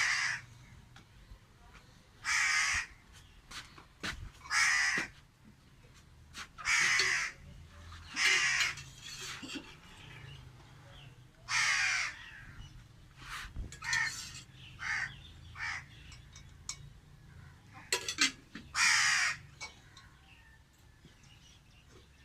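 A crow cawing: a long series of harsh, loud caws, each about half a second to a second long, coming irregularly every one to three seconds, with fainter, shorter caws between them.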